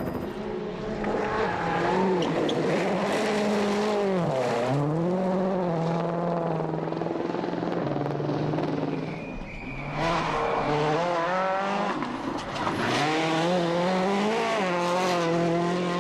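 World Rally Car's turbocharged four-cylinder engine driven hard on a stage, its pitch climbing through the revs and dropping sharply on lifts and downshifts, most deeply about four and a half seconds in and again about twelve seconds in.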